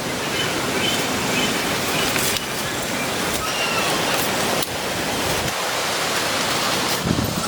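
Steady rushing noise, like running water or heavy rain, with a few faint short chirps over it.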